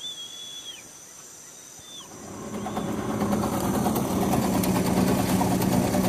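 A boat's motor comes up about two seconds in, grows over a second or two and then runs steadily as the boat gets under way. Before it, a bird gives a whistled call twice over a steady high hum of insects.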